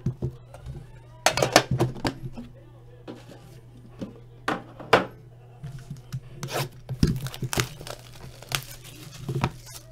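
Hands handling trading-card boxes and packs: plastic wrapping crinkling and tearing, with cardboard boxes knocking and sliding on a tabletop. It comes in scattered bursts of rustling and sharp clicks.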